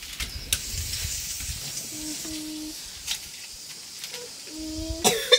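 Steady high hiss of food sizzling in a cooking pan, with two brief low hums partway through and a loud clatter of knocks near the end.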